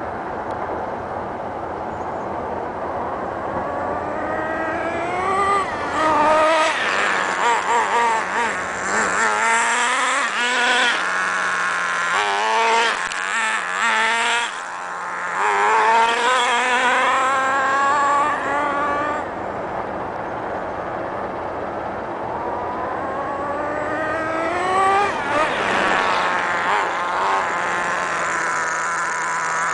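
HPI MT2 nitro RC monster truck's small two-stroke glow engine revving at high pitch, its note climbing and falling over and over as the truck accelerates, passes and speeds away, loudest in the middle and again near the end.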